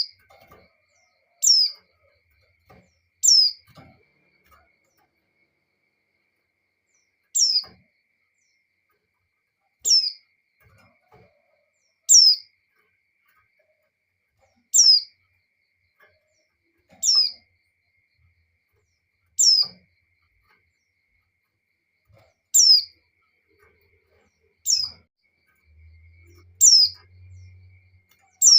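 Female white-eye (pleci) giving a short, high call that slides down in pitch, repeated about every two seconds: the call of a female in breeding condition calling to a male.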